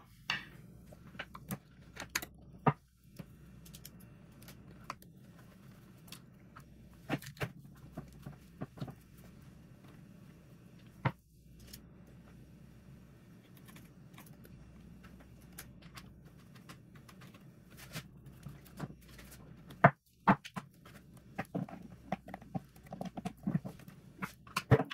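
Scattered light clicks and taps of small screws being handled and tightened by hand into a plastic jump-starter housing, over a faint steady hum. The clicks come a few at a time, with a denser run of them near the end.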